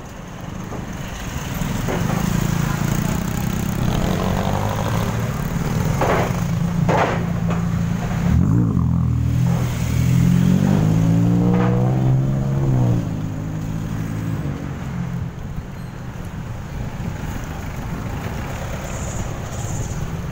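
Busy road traffic close by: car and motorcycle engines running, with one engine dropping and then rising in pitch about halfway through as it pulls away.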